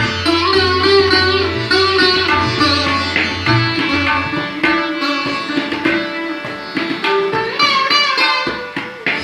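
Sitar playing a Hindustani classical melodic passage of plucked notes with pitch slides, accompanied by tabla.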